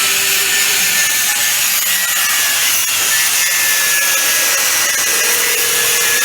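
Yamaha X1R motorcycle's single-cylinder four-stroke engine running steadily through an aftermarket HGM muffler: a loud, even exhaust note, hissy and rasping rather than deep, with a few faint held tones.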